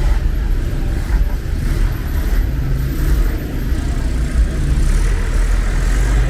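Steady low rumble of street traffic, with a city bus's engine running at the kerb close by.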